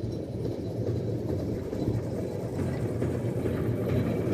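Narrow-gauge diesel locomotive running steadily as the train approaches along the track, its engine drone growing gradually louder.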